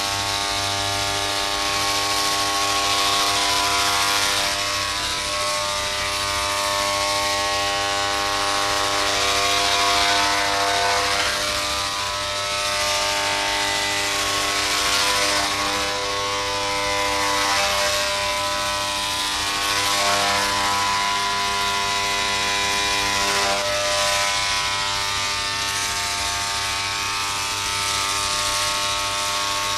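Electric hair clippers buzzing steadily as they shave a man's head, the hum shifting a little as they move.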